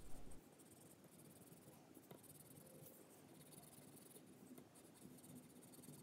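Faint scratching of a wax crayon being rubbed back and forth across paper as it colours.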